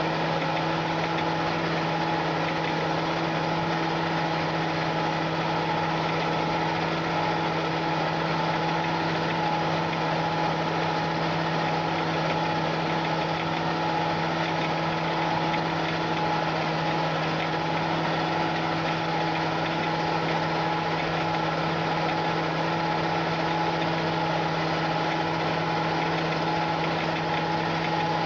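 John Deere 8260R tractor's six-cylinder diesel running at a steady engine speed under load while pulling a disc harrow through a cover crop, a constant even hum with no change in pitch.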